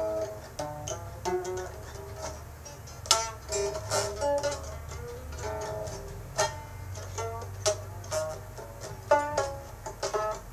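Music: a plucked string instrument playing a run of separate, quickly decaying notes.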